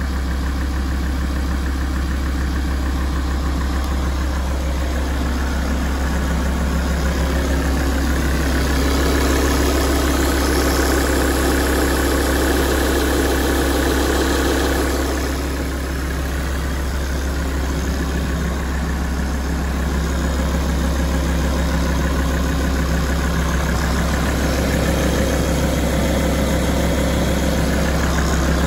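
Alfa Romeo 166 facelift's 2.4 JTDm five-cylinder turbodiesel idling steadily while warming up. About a third of the way in, a louder layer of noise joins for several seconds, then falls away.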